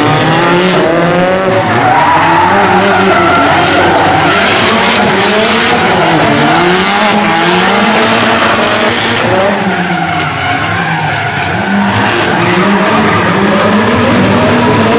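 Drift cars sliding sideways around the course, engines revving up and down again and again under throttle, over continuous tyre squeal and skid noise.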